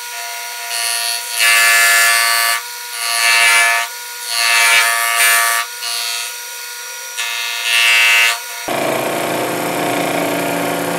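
Sherline mini mill running with a steady whine while its fly cutter faces a small aluminium block, with several loud stretches of cutting noise about a second each. After about nine seconds the sound turns to a steadier, even running noise.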